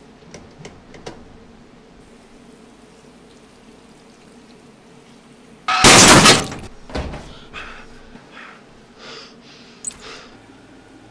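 A sudden loud crash of breaking glass about six seconds in, as a mannequin is smashed into the back of a fake toilet mirror to mimic a car windscreen shattering in a crash, followed by a few smaller crashes and rattles. Before it, only a few faint clicks.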